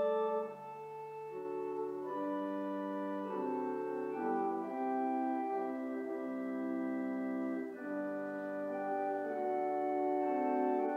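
Church organ playing slow, held chords that change every second or so.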